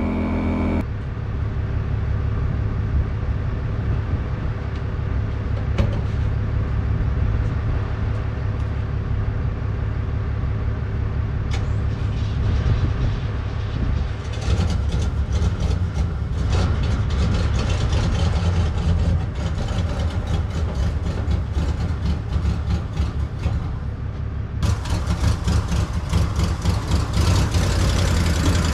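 An engine running steadily, a strong low drone, picking up a rougher, noisier edge from about halfway through.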